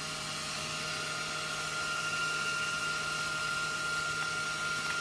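A steady machine hum with a constant high whine over an even hiss, unchanging throughout.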